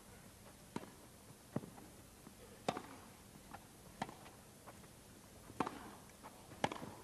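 Tennis rally on a grass court: racquets striking the ball back and forth, a string of sharp pocks roughly a second apart, with a few fainter taps between them.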